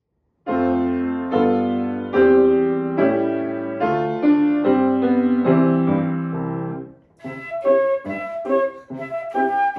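Grand piano playing a chordal march introduction, starting about half a second in. About seven seconds in, a flute enters with short, separated notes over the piano accompaniment.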